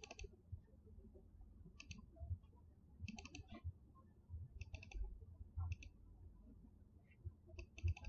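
Faint computer mouse clicks in short clusters of quick clicks, about six groups a second or so apart, made while selecting and addressing a tag in PLC programming software.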